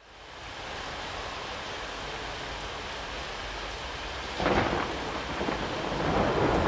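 Steady rain of a thunderstorm, fading in at the start. About four and a half seconds in, thunder breaks suddenly and rumbles on, growing louder near the end.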